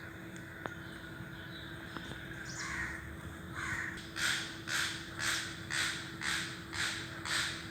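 Crow cawing: two softer calls around the middle, then a run of seven loud caws, about two a second, near the end.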